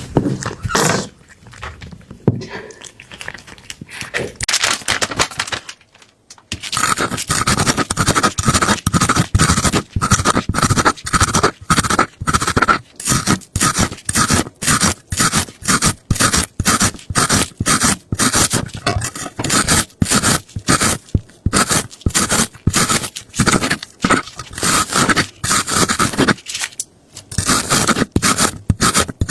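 Repeated scraping strokes in a quick, even rhythm of about two to three a second, after a brief pause about six seconds in and with another short break near the end.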